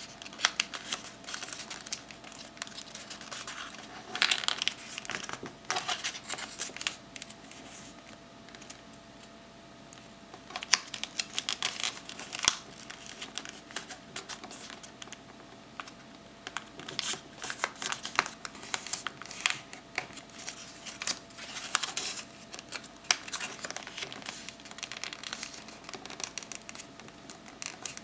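A sheet of paper being folded and creased by hand into a paper airplane: crinkling and rustling in irregular bursts with sharp crackles as the folds are pressed flat.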